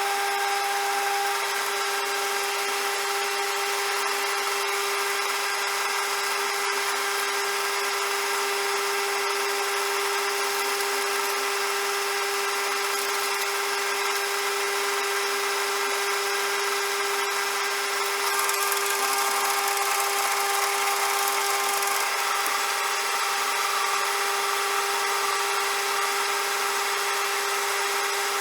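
CJM360 metal lathe running steadily with a constant whine, a brighter hiss joining for a few seconds past the middle.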